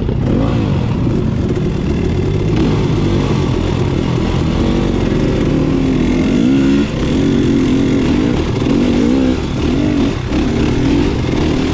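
Dirt bike engine running at trail pace, its pitch rising and falling again and again as the throttle is worked up a single-track climb. A heavy low rumble of wind on the microphone runs underneath.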